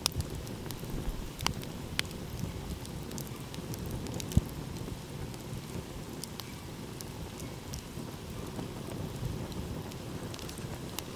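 Wood campfire crackling, with scattered sharp pops and one louder pop about four seconds in, over a steady low rumble.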